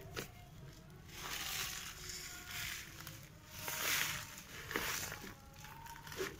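Lumpy clay garden soil mixed with sand being tipped and scraped by hand out of a plastic tub onto a plastic sheet, in several uneven gritty pours and rustles.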